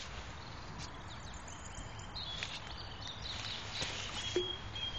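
Faint rustling and a few soft knocks of hands handling fishing gear, with a faint high steady tone over the last second or so.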